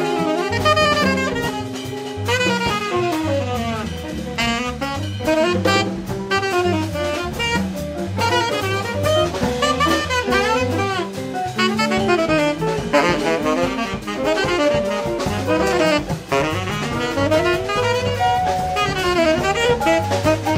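Tenor saxophone playing a fast jazz solo line, with a bass line and a drum kit behind it.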